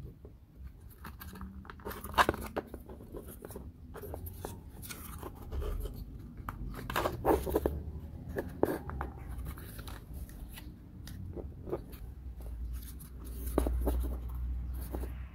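Small wooden puzzle pieces being handled and fitted together: scattered clicks, taps and scrapes, the sharpest about two seconds in and again around seven seconds.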